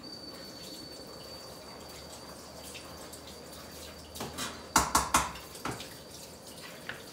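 A pot lid being lifted off a cooking pot on the stove, clattering several times in quick succession about two-thirds of the way through, over a faint steady hiss with a thin high whine.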